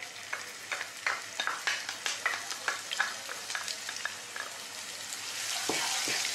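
Chopped onion going into hot oil and spice seeds in a frying pan: a run of small crackles and taps, then the oil sizzling louder from about five seconds in as it is stirred with a wooden spatula, with a couple of knocks near the end.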